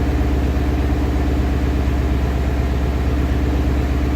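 A 2017 Ford's engine idling steadily on a freshly installed Ford Performance PP2 tune, sounding healthy, with a nice tone.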